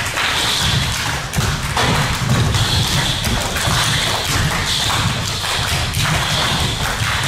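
Many performers stamping and slapping on a wooden stage: a dense run of overlapping thumps and taps, with a hiss-like sound swelling and fading every second or two.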